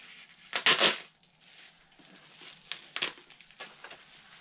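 Bubble wrap crinkling as it is handled and pulled at around a boxed vinyl figure: one loud burst of crinkling about half a second in, then a few softer rustles.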